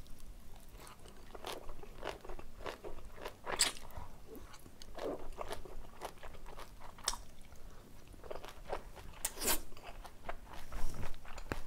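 Close-miked eating of jajangmyeon made with chewy Chinese glass noodles: irregular wet chewing and biting sounds, with a few louder crunches about three and a half, seven and nine and a half seconds in.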